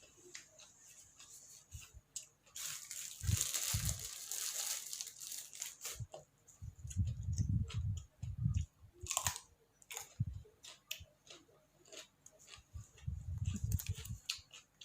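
Close-up eating: chewing and crunching raw vegetables and shrimp with jaew dip, with many small mouth clicks and a stretch of rustling or tearing about three seconds in.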